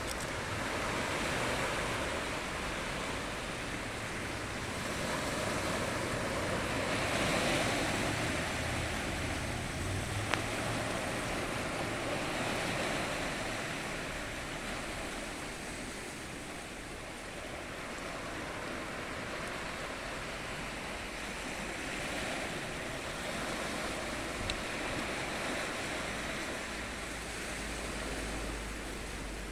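Ocean waves breaking and washing on a shore, swelling and ebbing every few seconds, with some wind noise on the microphone.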